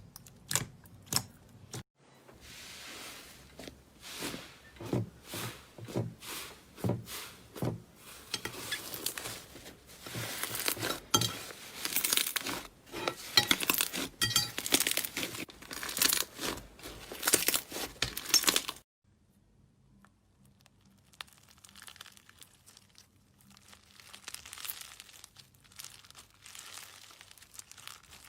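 Slime being squeezed and stretched by hand, giving rapid, irregular crackling and popping. It cuts to much fainter crackling about two-thirds of the way in.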